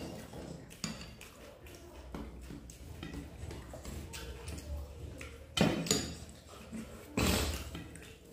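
Eating with bare hands from steel plates: fingers mixing rice and curry against the steel, chewing and small mouth sounds, with two louder clatters of a bowl knocking against the dishes in the second half.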